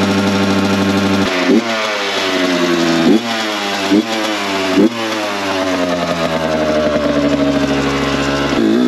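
Kawasaki KX dirt bike engine running at a standstill and revved in several quick throttle blips in the first five seconds. Each rev dies away slowly back toward idle.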